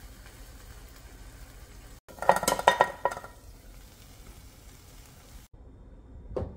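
Egg omelette sizzling gently in a frying pan. About two seconds in comes a quick run of loud metallic clinks of a utensil against the pan, with ringing. Near the end there is a low thump.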